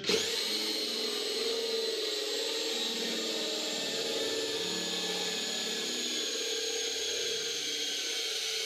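Cordless drill running at high speed with a 9/16-inch bit, boring through a boat's fiberglass hull and gel coat under medium pressure: a steady motor whine whose pitch sags slightly as the bit works through.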